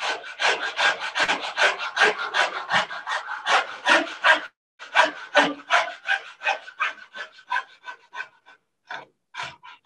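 Coping saw cutting through crown moulding along a traced profile line, the first of four cuts for a coped joint. Quick, even back-and-forth strokes, about four or five a second, with a brief pause about halfway and lighter strokes near the end.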